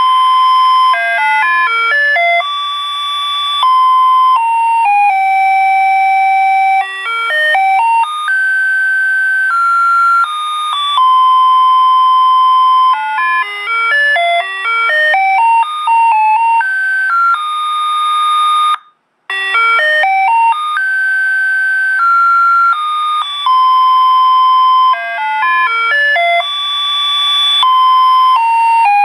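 Custom-made electronic reversing horn on 12 V power, loudly playing a garbage-truck-style electronic melody of clean beeping tones and repeating it over and over. The tune cuts out for a split second about two-thirds of the way through, then carries on.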